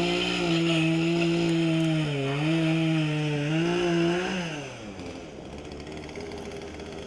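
Bow-mounted electric trolling motor whining steadily, its pitch stepping up and down as the speed changes, then winding down and stopping about four and a half seconds in.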